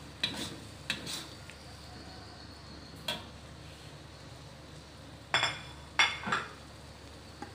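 Metal spatula scraping and clinking against a wok while stirring a thick sambal: a few scattered scrapes, then a louder cluster of clanks about five and a half to six and a half seconds in.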